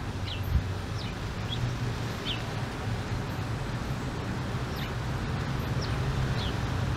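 Muscovy ducklings giving short, high, falling peeps, about one a second, over a low steady rumble, with a soft bump about half a second in.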